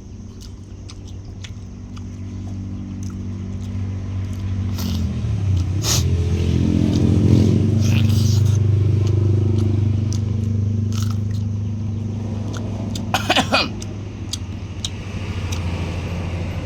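A motor vehicle's engine running close by, growing louder over the first several seconds, with its pitch shifting about five seconds in before easing off slightly. Small clicks of chewing run throughout, and a brief sharp rattle comes about thirteen seconds in.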